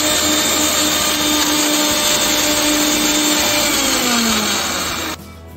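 Electric mixer grinder running at full speed, its blades grinding cream biscuits into a fine powder. The motor's pitch drops near the end and the sound cuts off abruptly about five seconds in.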